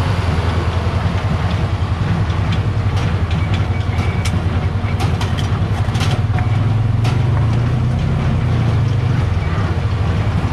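John Deere 4430's six-cylinder diesel running steadily, with a cluster of sharp clicks and rattles about three to seven seconds in.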